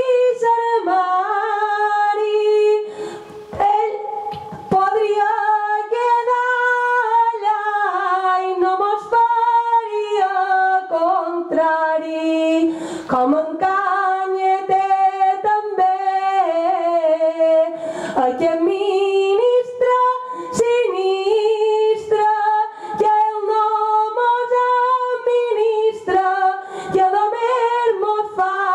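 A woman singing Mallorcan gloses (sung Catalan verse) into a microphone with no accompaniment, in long held, ornamented notes with a few short breaks for breath.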